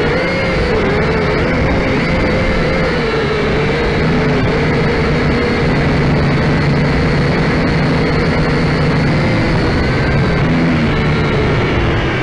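Syma X5C quadcopter's four brushed motors and propellers whining in flight, heard close up through its own onboard camera, the pitch wavering up and down as the throttle and attitude change.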